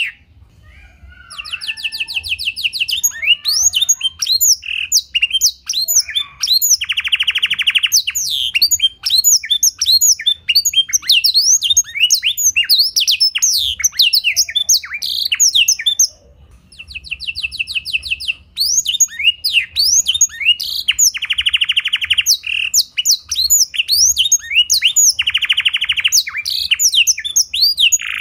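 Domestic canary singing a long, fast song of chirps, whistles and buzzy rattling trills, its song filled with phrases learned from the black-throated canary (blackthroat). The song breaks off briefly twice: just after the start and about halfway through.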